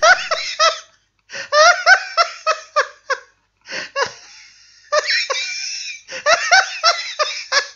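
High-pitched laughter in several quick fits of short, rising syllables, with brief pauses between them.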